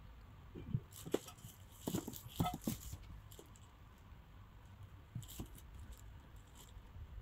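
Soft handling sounds of a glass pot lid: a few light knocks and clicks with a brief crinkly rustle, busiest between about one and three seconds in, and a couple more a little after the middle.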